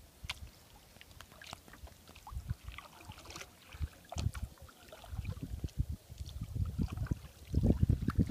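Double-bladed kayak paddle strokes on a lake: blades dipping and splashing, with water dripping off the paddle. A low rumble of wind on the microphone builds over the last few seconds and becomes the loudest sound.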